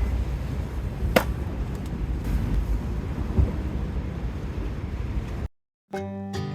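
Wind buffeting the microphone outdoors: a loud, rumbling rush, with one sharp click about a second in. Near the end it cuts off, and after a moment of silence plucked-string background music with banjo and guitar begins.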